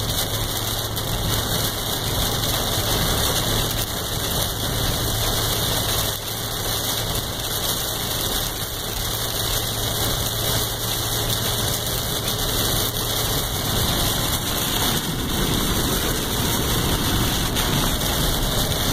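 Heavy rain hitting a pickup truck's windshield and cab, heard from inside the cab, over steady engine and road noise as the Dodge Ram drives through a thunderstorm. A low engine hum fades out about two-thirds of the way in.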